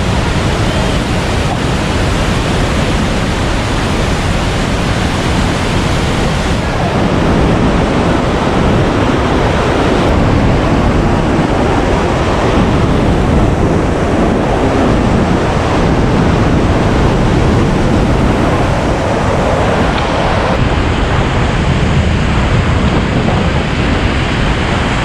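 Loud, steady roar of the Iguaçu Falls' falling water.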